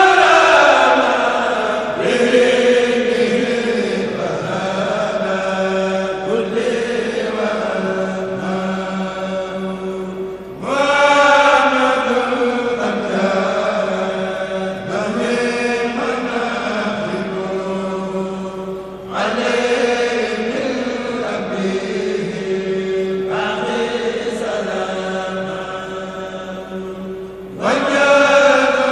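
A kourel, a group of male Mouride chanters, chanting a khassida a cappella in long drawn-out phrases over a steady held low note. A loud new phrase begins about every eight to nine seconds.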